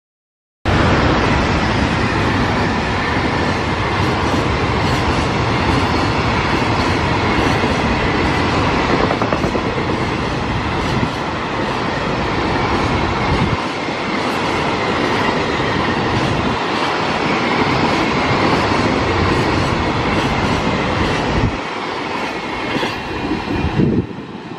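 Long container freight train passing at speed. Its wagons' wheels run over the rails in a loud, steady rush broken by many short clacks. The sound cuts in suddenly about half a second in, and drops away near the end as the last wagon goes by.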